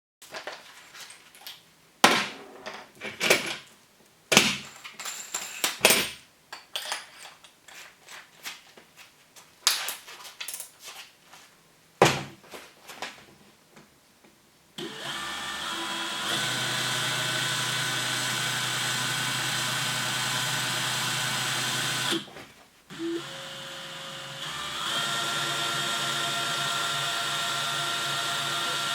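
Handling clicks and knocks for about the first half, then a DeWalt DCD790 brushless cordless drill spins up and runs steadily at high speed. It stops for a moment, restarts at a lower speed and steps up again a couple of seconds later.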